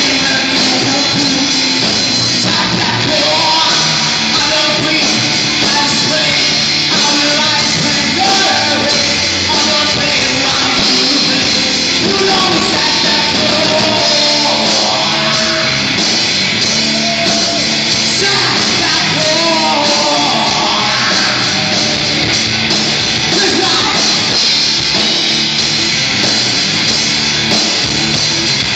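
Live rock band playing loudly and steadily, with a singer over the instruments.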